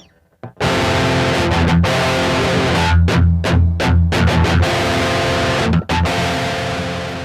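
Recorded 1990s rock music: a full band with distorted electric guitar, bass and drums comes in loudly about half a second in after a brief gap.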